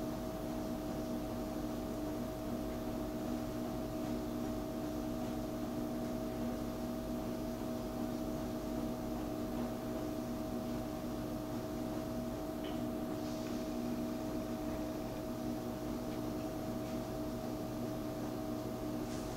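12-volt computer fans of a homemade egg hatcher running, a steady, even hum with a few held tones over a light hiss.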